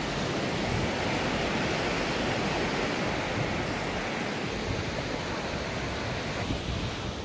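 Steady rush of surf washing onto a sandy beach.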